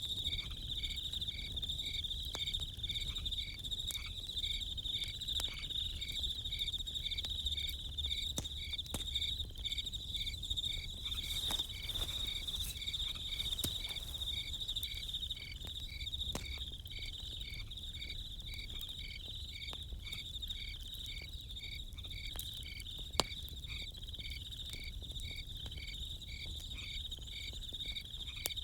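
Crickets chirping: a steady high trill with a slower, evenly repeating chirp beneath it. Under them a campfire crackles with scattered small pops and one sharper pop about 23 seconds in.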